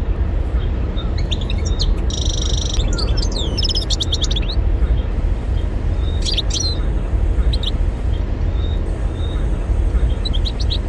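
European goldfinch singing in several bursts of quick, high twittering with a short buzzy note, over a steady low rumble.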